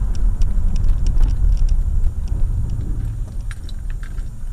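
Steady low rumble of a car driving on a wet, slushy road, heard from inside the cabin, with scattered light clicks and rattles.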